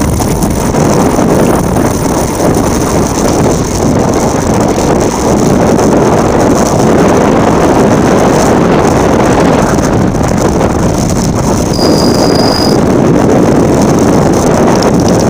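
Loud, steady wind rushing over the microphone during a fast downhill bike descent, mixed with the rumble of tyres over loose ground. A brief high-pitched squeak sounds about twelve seconds in.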